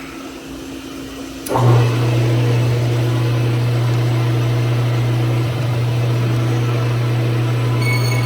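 Metal lathe switched on with a click about a second and a half in, its motor then running with a steady, loud low hum. A faint high whine joins near the end.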